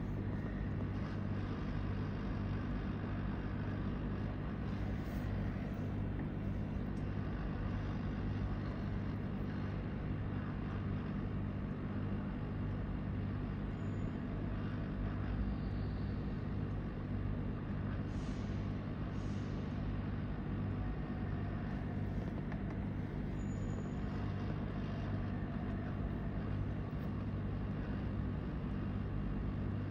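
Steady, even drone of a small electric blower, with a low hum and a couple of faint ticks about two-thirds of the way through.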